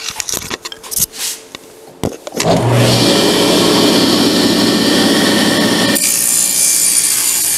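Table saw switched on about two seconds in and running loudly, then the sound turns brighter and higher from about six seconds as the sled pushes the beadboard plywood panel into the blade and the crosscut begins. Light handling clicks and rustles come before the saw starts.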